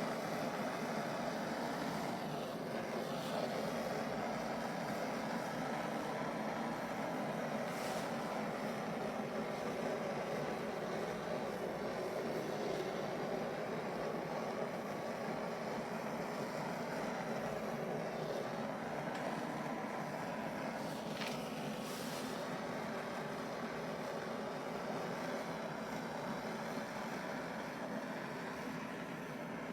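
Handheld blowtorch flame running with a steady roar, played over wet acrylic pour paint to bring cells up through the surface.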